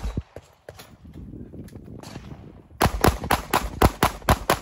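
Pistol gunfire: a shot at the very start, a pause of about two and a half seconds, then a rapid string of about ten shots fired in quick succession near the end.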